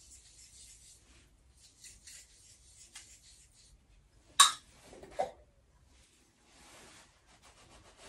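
Hands working with plumbing pipe and fittings: soft scraping and rustling, a sharp hard knock about four and a half seconds in, and a smaller knock just under a second later.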